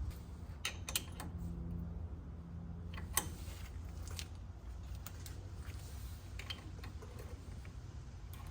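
Scattered, irregular light clicks and taps of metal parts and hand tools being handled as a front hub and its castle nut are fitted on a truck spindle, over a steady low hum.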